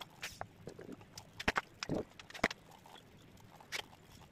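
Scattered sharp clicks and knocks of metal cabinet hinges being picked up and set down on laminated plywood door panels, the loudest three coming close together about two seconds in.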